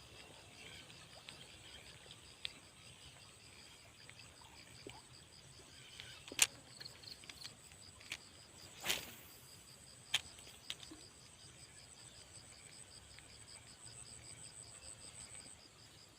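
Insects chirping in a steady, rapid pulsing trill with a second high, steady buzz above it. A few sharp clicks and a brief swish about nine seconds in.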